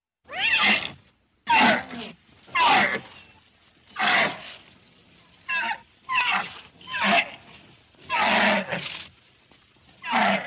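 An animal calling loudly again and again, about nine short calls, each under a second long, with short gaps between them.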